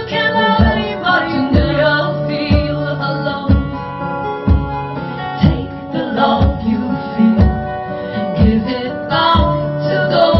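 Live band music: acoustic guitars strummed over a steady low beat about once a second, with female voices singing but no clear words.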